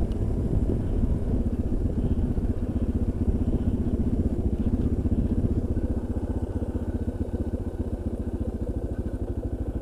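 Suzuki DR650's single-cylinder engine running under way at a steady cruise, its exhaust beat pulsing evenly; it drops slightly in level about six seconds in.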